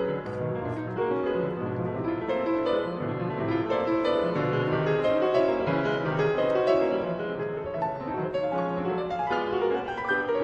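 Background piano music: a steady run of notes.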